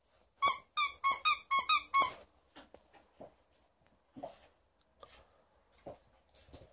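Squeaker inside a plush raccoon dog toy squeezed by hand: a quick run of about seven high squeaks in under two seconds, followed by soft rustling and taps on the fabric.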